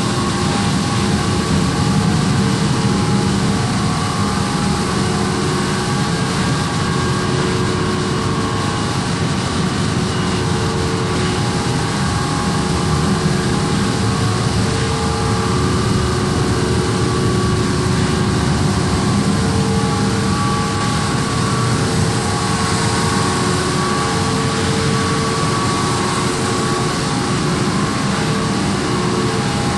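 Machinery of the 1997 double-decker thruster ferry ms Prins Johan Friso running steadily: a loud, even low drone with several steady hum tones over it.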